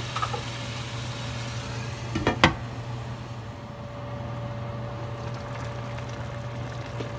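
Glass pot lid set down onto a stainless steel pan with a short clatter about two and a half seconds in, over a steady low hum.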